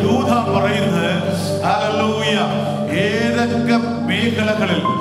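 A worship song sung over instrumental backing, with held, wavering sung notes.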